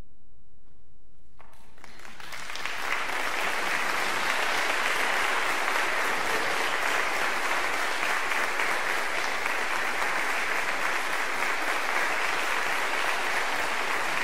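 Audience applauding, the clapping starting about a second and a half in, swelling over the next second and then holding steady.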